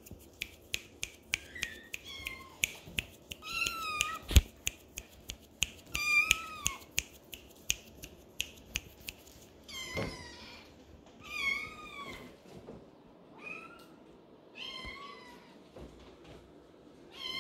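Maine Coon kittens meowing over and over in thin, high-pitched mews. A quick run of sharp clicks, about two or three a second, goes along with the meows through the first half.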